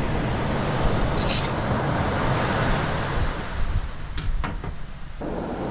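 Steady low rumble of wind on the microphone and surf, with a short rustle about a second in and two sharp clicks about four seconds in from fishing gear being handled at the back of a vehicle.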